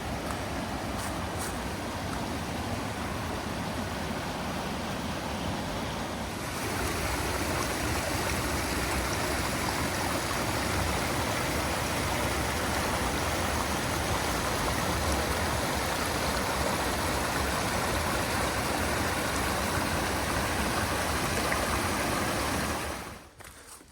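Rushing water of a waterfall: a steady, even noise that gets louder about six and a half seconds in and falls away near the end.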